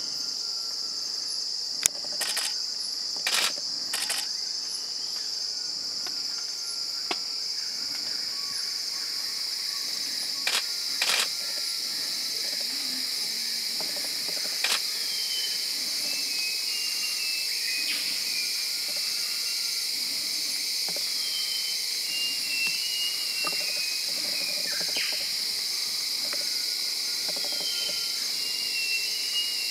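Steady, high-pitched chorus of rainforest insects such as crickets or cicadas. A few sharp clicks sound in the first half, and several short runs of falling chirped notes, likely from a bird, come in the second half.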